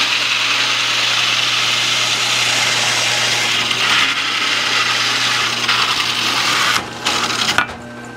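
Benchtop drill press driving a 71 mm hole saw through a wooden hive-top lid: a steady, loud rasping cut over the motor's hum. The cutting stops about seven seconds in, leaving the motor running, and there is a sharp click near the end.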